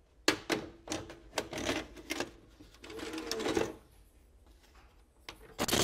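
VHS cassette being loaded into a VCR: the tape-loading mechanism clicks and clunks several times and gives a short motor whir. A single button click comes near the end.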